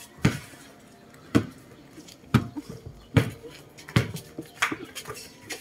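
A series of sharp knocks, six clear ones about a second apart, each with a solid low thump, over light clatter.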